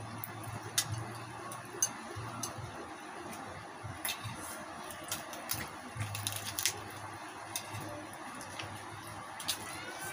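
Crispy deep-fried pork being torn apart by hand, the skin crackling in scattered sharp snaps with wet squishing of the meat.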